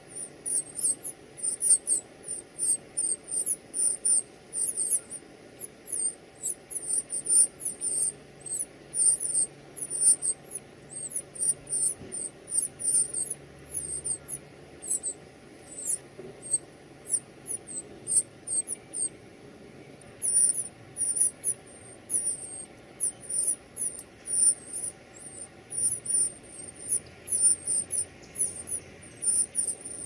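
Northern cardinal nestlings begging: a rapid, unbroken run of thin, very high-pitched squeaky calls, several a second.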